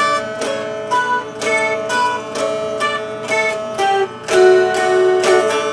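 Mountain dulcimer played flat on the lap and picked: a melody of plucked notes, a few a second, over steady drone strings.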